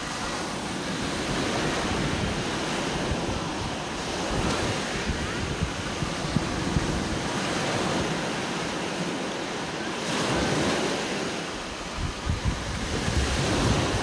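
Small surf waves breaking and washing up a sandy beach in a steady, swelling wash. Wind rumbles on the microphone, heavier near the end.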